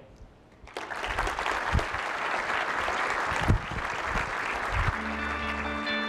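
Audience applause, starting about a second in. Near the end, closing music with long held notes comes in.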